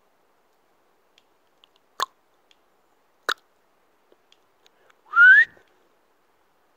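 Faint scattered clicking in the forest, which the walker cannot place and says is not a woodpecker, with two sharper clicks about a second apart. Near the end comes one short rising whistle, the loudest sound.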